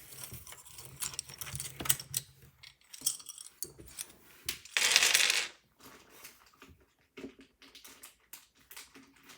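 Small plastic clicks and clatters of keycaps being handled and pressed onto the switches of a Ducky mechanical keyboard, irregularly spaced. There is a brief, louder rush of noise about five seconds in.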